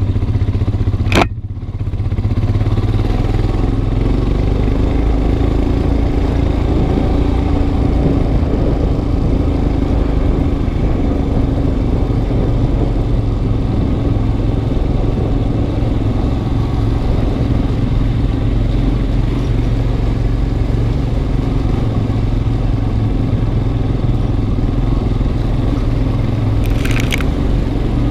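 Motorcycle engine running steadily as the bike rides along a rough dirt track, with a sharp click about a second in and a short high rasp near the end.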